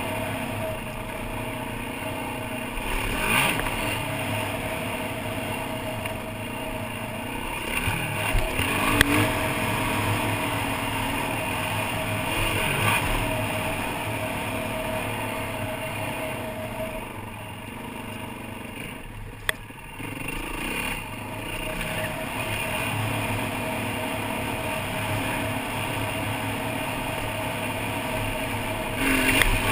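Yamaha WR450F dirt bike's four-stroke single-cylinder engine running as the bike is ridden along a dirt trail, rising and falling with the throttle. It eases off for a few seconds a bit past the middle. Two sharp knocks stand out, about a third of the way in and again about two-thirds in.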